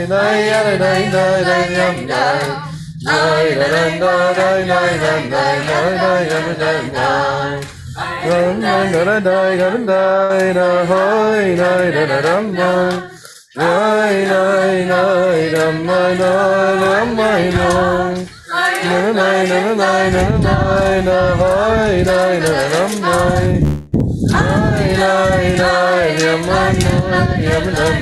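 Group of voices singing a Yiddish melody together a cappella, in phrases broken by short breaths about every five seconds. A low rumble joins from about two-thirds of the way in.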